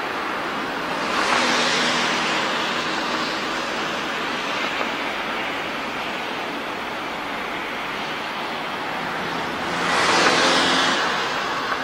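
Railway yard ambience: a steady rushing noise that swells twice, about a second in and again near the end, with a faint low hum underneath.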